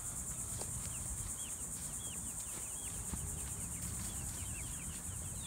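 A steady, high-pitched, pulsing drone of insects, with short chirps repeating about twice a second over it.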